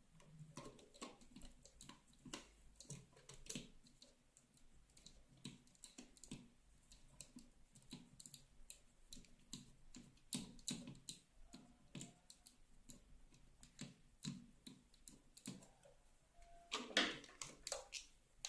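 Faint, irregular small clicks and ticks of a screwdriver turning the screws out of a wall plate cover, with a louder clatter of clicks near the end.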